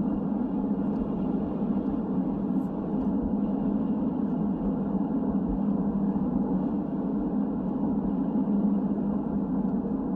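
Steady road and engine noise of a car driving, heard from inside the cabin, even and unchanging throughout.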